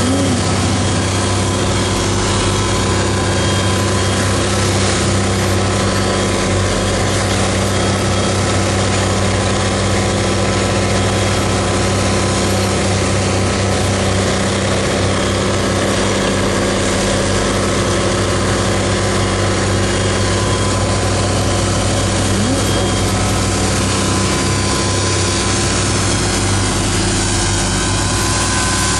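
CAT track tractor's diesel engine running steadily under load, pulling a fertilizer applicator toolbar through the soil: a constant drone that holds one pitch.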